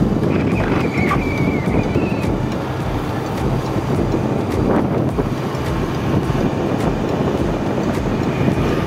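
Wind buffeting the microphone on a moving motorcycle, mixed with the bike's engine and road noise. A thin high tone sounds for about two seconds near the start.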